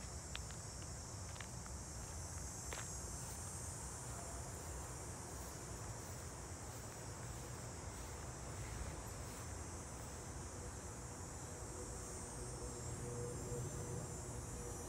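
A steady, high-pitched chorus of insects, with a low rumble beneath it and a few faint clicks in the first few seconds.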